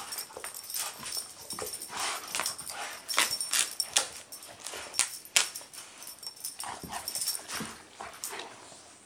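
Two golden retrievers playing tug of war with a sock, making a quick, irregular run of short play noises as they pull and shake it. The noises thin out near the end.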